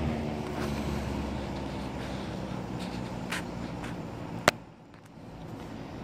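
Circa-1978 Western Auto Citation (Lasko 3714) wide-blade box fan running with a steady motor hum that slowly winds down, having just been switched from high to low speed. A single sharp click comes about four and a half seconds in.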